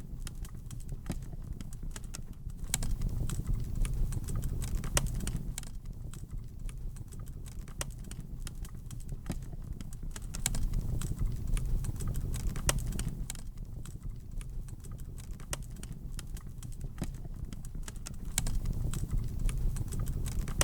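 Wood fire burning in a fireplace, crackling with irregular sharp pops over a low rumble of flames; the crackling swells louder for a few seconds at a time, three times.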